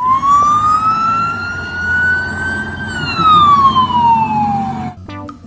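Traffic police car siren sounding one slow wail: the pitch rises for nearly three seconds, falls for about two more, then cuts off near the end.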